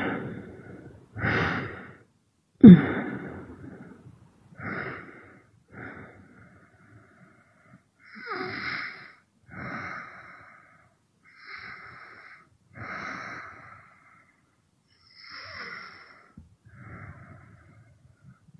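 A woman breathing audibly in short, hissy breaths roughly every one to two seconds, a couple of them opening with a brief low groan.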